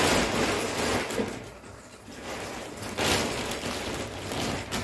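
Clear plastic mattress wrapping rustling as it is pulled away and handled. It comes in two bouts: one that dies down about a second and a half in, and another from about three seconds in.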